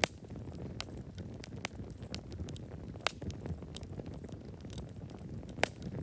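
Burning wood crackling in a campfire: irregular sharp pops and snaps over a low, steady rumble of the flames, with the loudest pops right at the start, about three seconds in and near the end.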